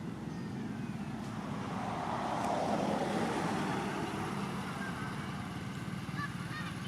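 Road vehicle passing by, its engine and tyre noise swelling to a peak about three seconds in and then fading, over a steady rumble of traffic. A few faint short chirps near the end.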